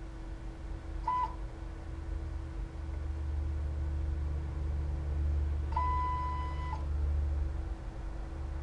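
Two electronic beeps at the same pitch: a short one about a second in, and a longer one lasting about a second a few seconds later. They sit over a steady machine hum whose low rumble grows louder from about three seconds in.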